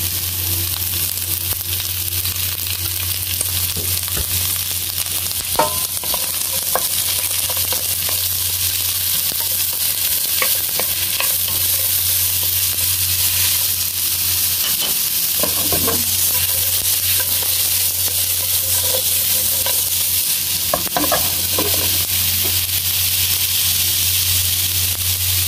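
Sliced onions sizzling in a little cooking oil in a nonstick wok, with a steady hiss. They are stirred with a wooden spatula that scrapes and knocks against the pan now and then. A steady low hum runs underneath.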